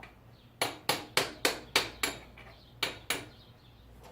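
Hammer tapping the rear axle out of a motorcycle's wheel hub: about nine sharp, ringing taps at roughly three a second, with a short pause before the last two.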